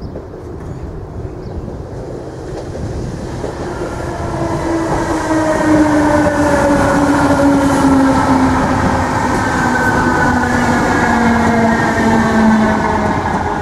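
Irish Rail 8100 class DART electric multiple unit arriving and running close past, its traction motors whining in several tones that fall slowly in pitch as it slows into the station. Underneath is the rumble of wheels on rail. The sound grows louder as the train nears and stays loud while the carriages go by.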